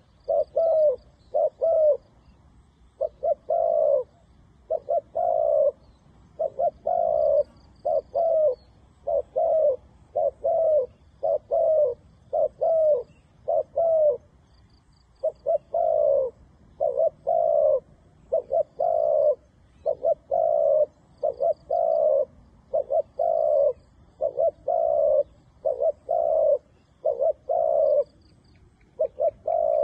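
Spotted doves cooing over and over in short phrases of two or three low notes, with brief pauses between phrases. Faint high twittering of a small bird sounds now and then.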